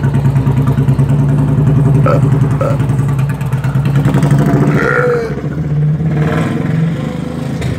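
Harley-Davidson motorcycle's V-twin engine running close by, loudest around the middle and easing off in the second half.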